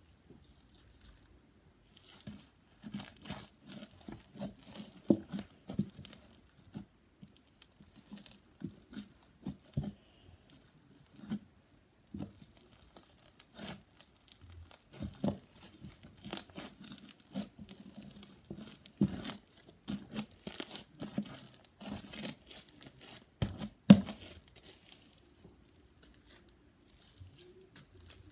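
Blue slime being stretched, squeezed and pressed by hand, making a run of irregular sticky crackles, pops and tearing snaps. The loudest snap comes near the end.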